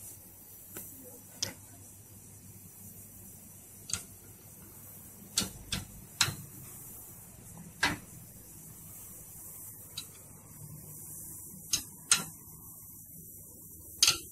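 Metal ring spanner clinking against the oil drain plug of a Toyota Grand New Avanza as the plug is worked loose: about a dozen sharp metallic clicks at irregular intervals.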